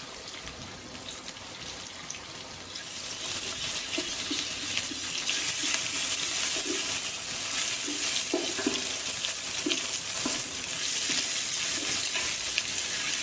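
Garlic, ginger and green chili frying in hot oil with onions and spices: a steady sizzle that grows louder about three seconds in. A spoon knocks and scrapes against the pan as the masala is stirred.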